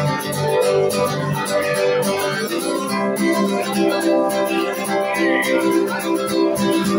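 Acoustic guitar strummed in a steady rhythm, playing a song's instrumental introduction with no singing.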